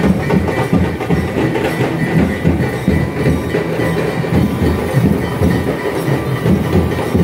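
Dhol drums beating a loud, steady, fast rhythm, the low drum strokes packed close together.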